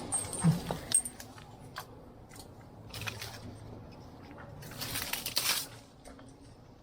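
A few sharp clinks in the first second, scattered light ticks, then a loud rustle about five seconds in: climbing gear clinking and branches and leaves being brushed in a tree.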